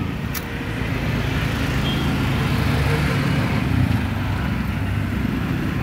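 Road traffic passing close by: motor vehicle engines giving a steady low hum that swells a little and fades back.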